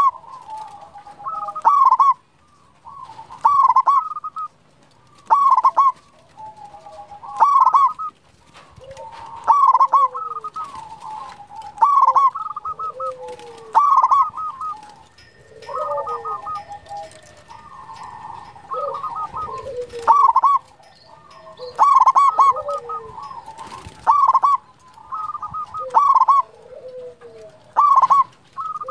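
Zebra dove (perkutut) cooing in full song: loud, clipped coos about every two seconds, with softer, lower rolling coos between them.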